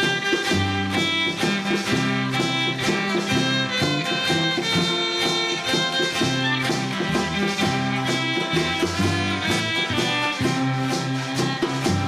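Caymanian kitchen-band music: a fiddle melody over strummed acoustic guitars, with shaken maracas and a drum keeping a steady, bouncy beat.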